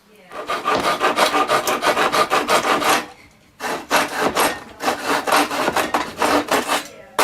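Hand pull saw cutting through a wooden bed board in quick back-and-forth strokes, with short pauses about three seconds in and again near five seconds.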